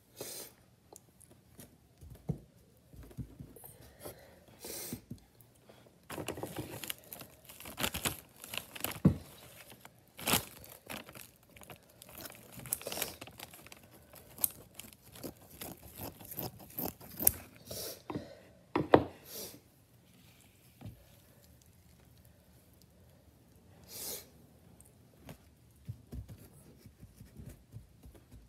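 Plaster cloth being handled and torn: irregular bursts of rustling and tearing with a few sharper cracks, busiest in the first two-thirds, then mostly quiet apart from one short rustle about 24 seconds in.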